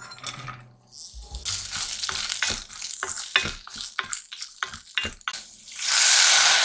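Julienned carrots sizzling in oil in a hot cast-iron pot while they are stir-fried, with a wooden spatula knocking and scraping against the pot many times. Near the end a splash of water hits the hot pan and sets off a loud hiss, the loudest sound here.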